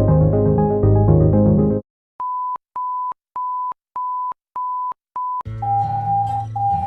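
Synth music stops about two seconds in. Six short, evenly spaced electronic alarm beeps at one high pitch follow. Near the end a steady high alarm-like tone starts over a low drone.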